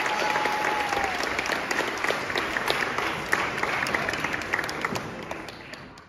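Audience applauding, a dense patter of hand claps that fades out toward the end. A single held high tone dies away about a second in.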